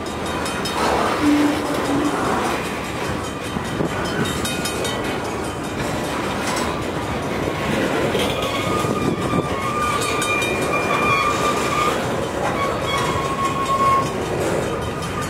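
Freight train cars rolling past, a continuous rumble and clatter of steel wheels on the rails. From about halfway in, thin steady high-pitched squealing tones come and go over it, typical of wheel flanges squealing against the rail.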